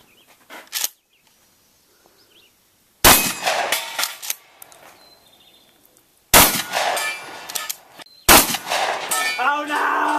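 Three handgun shots, about three, six and eight seconds in. Each is a sharp crack with a long trailing echo.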